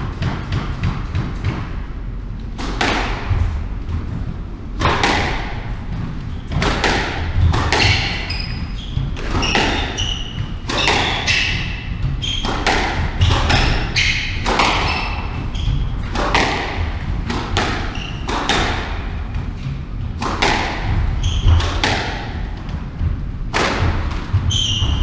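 A squash rally: the ball strikes rackets and walls in a steady run of sharp hits, one to two a second, with shoes squeaking on the wooden court floor.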